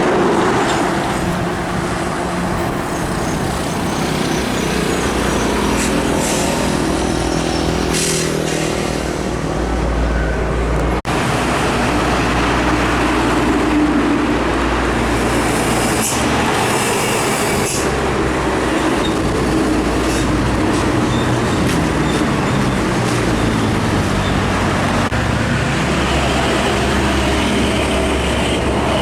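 Heavy trucks running past on a road: continuous engine drone and tyre noise, with engine pitch rising and falling as the vehicles pass.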